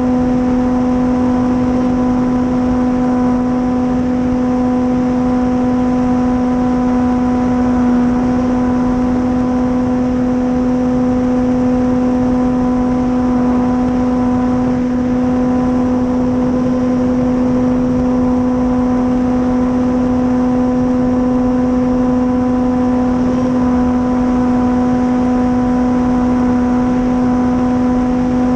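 Dualsky 480 brushless electric motor and propeller of an RC warbird holding a steady, unchanging hum at constant throttle, with rushing air noise underneath.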